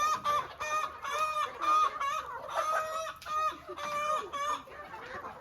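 Chickens clucking: a quick run of short calls, two or three a second, growing fainter near the end.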